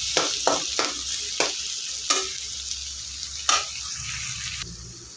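Onion and tomato frying in oil in a kadai, sizzling steadily, with a spoon scraping and knocking against the pan about six times as they are stirred. The sizzle thins near the end.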